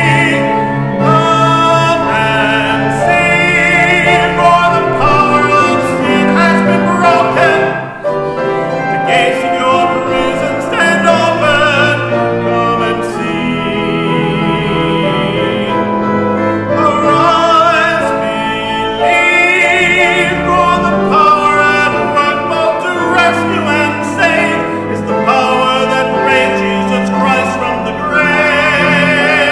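A man singing a solo in a trained, operatic style with a wide vibrato, over instrumental accompaniment.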